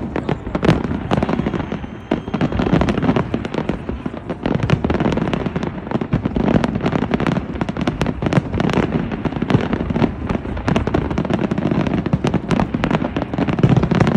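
Aerial fireworks display at full barrage: many shells bursting in quick succession, with bangs overlapping several a second over a continuous low rumble.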